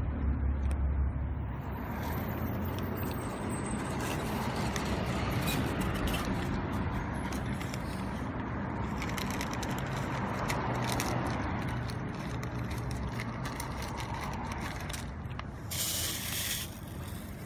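Road traffic passing in slow swells, with a low rumble at the start, and the small crunching clicks of kittens chewing dry kibble close by. Near the end comes a short hiss lasting about a second.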